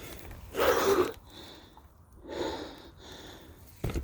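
A cyclist breathing hard after a hill climb: three heavy, noisy breaths, the first and loudest about half a second in. A short thump near the end.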